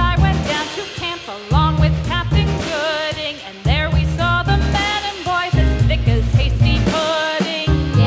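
Background music with a steady beat and a sung melody, in the style of a children's song.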